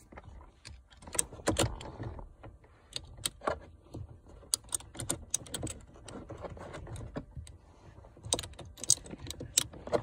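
Irregular sharp clicks and small metallic clinks of a Torx bit and screw against the hard plastic back of a steering wheel, as the airbag's retaining screw is fitted by hand.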